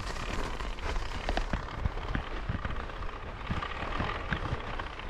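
Mountain bike with studded tyres riding over snow and ice: a steady crackling crunch under the tyres with many scattered clicks and knocks.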